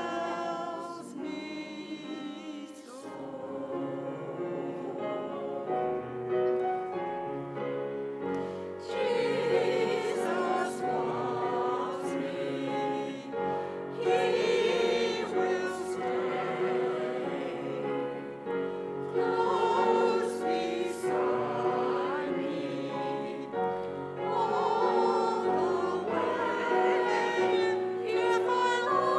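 Church choir singing an anthem in several parts, getting louder about nine seconds in.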